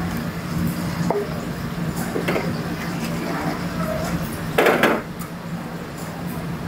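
A wooden spatula stirring and scraping sticky glazed fried chicken in a large wok, with a few light knocks against the pan and one louder scrape about four and a half seconds in, over a steady low hum.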